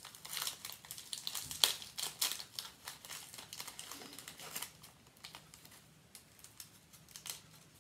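The crinkly orange wrapper of a regular-size peanut butter cup being peeled and unwrapped by hand: a quick run of irregular crackles, busiest in the first half and thinning to a few scattered ones near the end.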